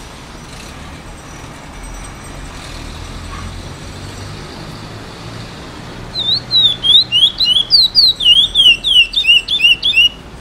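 Chestnut-bellied seed finch (curió), a young male in brown juvenile plumage about eight months old that is just beginning to sing, gives a fast run of loud, clear whistled notes, each sliding down in pitch, about four a second, starting some six seconds in. Before that only a low steady traffic hum is heard.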